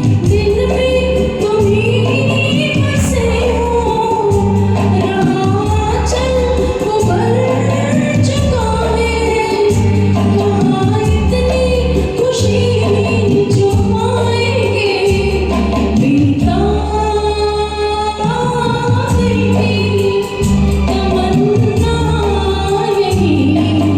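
A woman singing a Hindi film song over a karaoke backing track, with bass notes that change about every two seconds beneath the melody.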